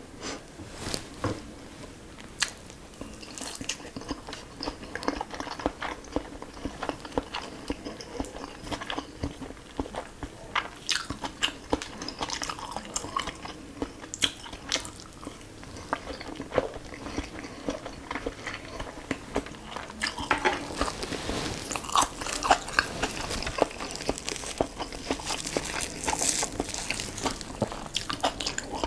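Close-miked eating: a person biting and chewing food, with many short wet clicks and smacks from the mouth, which come thicker and louder in the last third.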